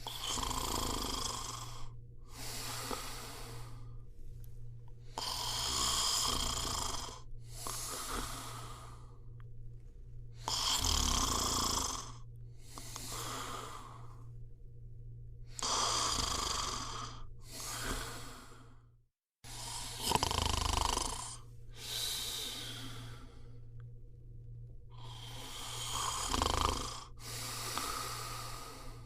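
A person snoring. Each breath is heard as a longer snore followed by a shorter one, about six breaths in all, one every five seconds or so, over a steady low hum.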